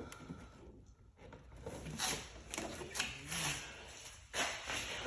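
Hands handling and shifting engine parts: a few short scraping and rubbing sounds with clicks, the strongest about two, three and four seconds in.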